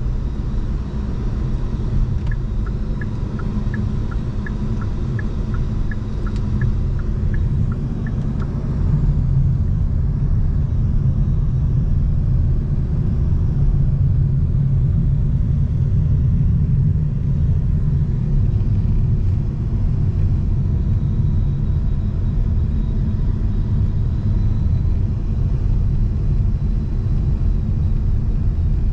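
Steady low road and engine rumble of a car being driven, heard from inside. From about two seconds in to about eight seconds in, a light, regular ticking runs at about three ticks a second in two alternating pitches.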